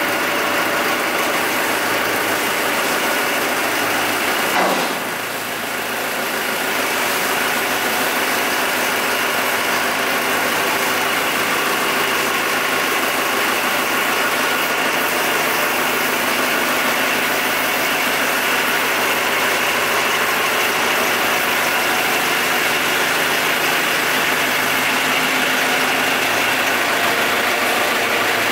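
Forklift engine running steadily. About five seconds in there is a brief rising whine, and the level dips for a moment after it.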